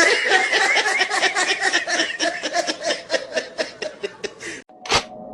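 A person laughing in rapid, high, wavering pulses, about four or five a second. The laugh cuts off abruptly a little after four seconds in, followed by one short burst of sound.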